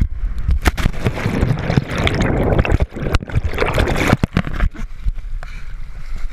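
Loud water splashing and churning close to the microphone, with many sharp knocks over a low rumble, settling down after about four and a half seconds.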